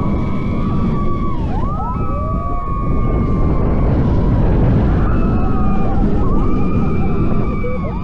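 Riders screaming in long held yells, several voices overlapping and each rising in at the start and falling away at the end, over the steady rumble of a Mack roller coaster train and the rushing wind as it runs at speed.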